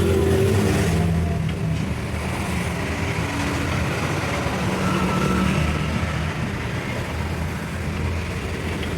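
A vehicle engine running steadily, with a constant low hum under broad mechanical noise.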